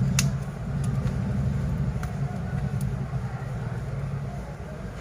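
A steady low engine-like rumble that eases off about four seconds in, with a few light clicks of small tools on the phone's parts.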